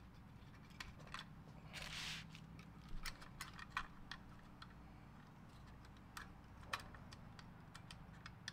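Faint scattered small clicks and a short scrape about two seconds in: screws and a fan being handled and driven into the aluminium fins of a graphics card's heat sink.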